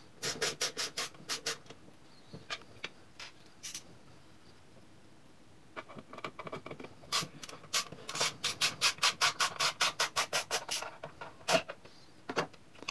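Torx T10 screwdriver undoing the screws that hold the circuit board of a Krups Nespresso coffee machine. It gives quick runs of short grating clicks, about five a second, with a short run at the start and a longer one in the second half.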